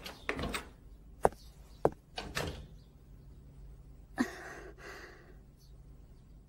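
A door being opened and shut, with a few sharp clicks and knocks and a short rush of noise about four seconds in.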